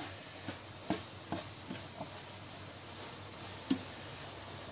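Ground beef sizzling quietly in a stainless steel frying pan, with a little liquid still cooking off, while a plastic slotted spatula stirs it. Light taps and scrapes of the spatula on the pan come every half second or so over the first two seconds, and one more comes near the end.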